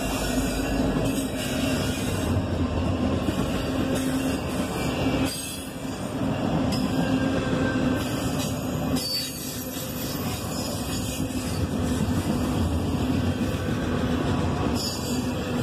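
Intermodal well cars loaded with double-stacked containers rolling past, a steady noise of steel wheels on the rails.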